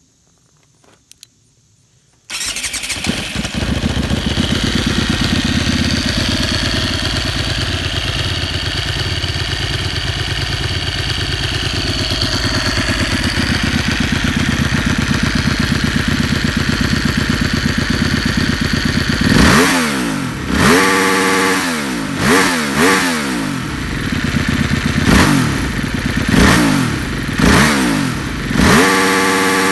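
Aprilia RXV 450 V-twin dirt bike on its stock exhaust starting up about two seconds in and running steadily at idle, then, past the middle, blipped in a string of about eight quick sharp revs, the last one held briefly near the end.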